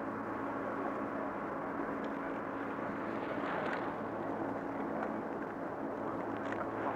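Steady mechanical rushing noise with a constant low hum, swelling briefly about three and a half seconds in.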